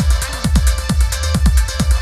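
Electronic trance-style background music with a fast, steady kick-drum beat and bass.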